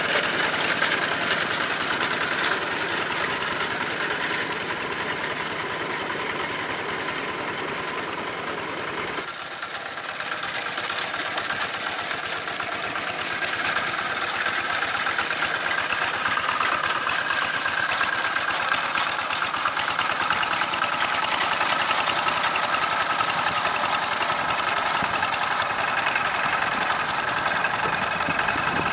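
Old Kubota single-cylinder diesel engine on a walk-behind hand tractor, running steadily under load as it drags cage wheels through a flooded rice paddy to level it. The sound changes abruptly about nine seconds in, drops slightly, then grows louder again.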